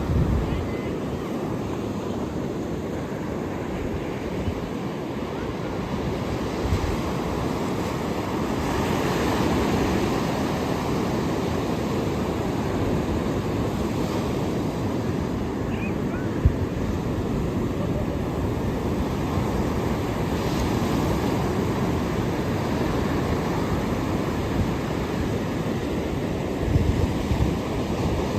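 Ocean surf washing ashore: a steady rushing that swells and eases slowly, with wind buffeting the microphone in low thumps near the end.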